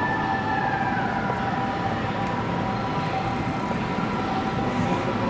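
A siren sounding over steady city street noise, its highest tone sliding down in pitch about a second in.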